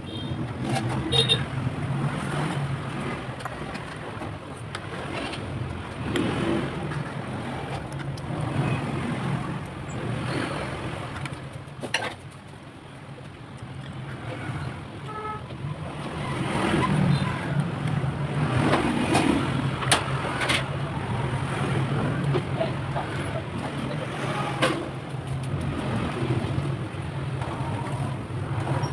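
Spoon and chopsticks clinking against a ceramic bowl and plate in short, scattered knocks, over a steady low hum.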